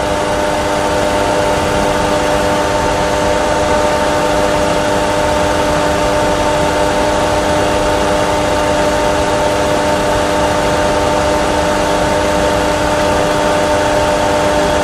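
Steady cockpit noise in a Boeing 737 Classic full flight simulator: a constant rushing hiss with a hum of several steady tones, the simulated engine and airflow sound of a climb-out with the left engine failed. It holds level, with no changes.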